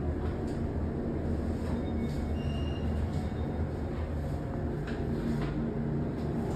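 Steady low rumble of a vehicle in motion, heard from inside, with a few faint clicks and rattles over it.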